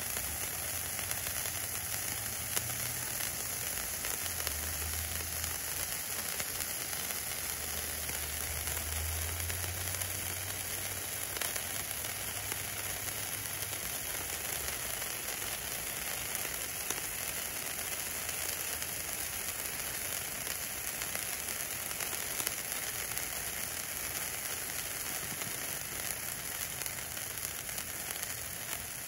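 Three Bright Star ice fountains, small silver spark-fountain fireworks, burning together, giving a steady hiss of sparks with a few faint ticks.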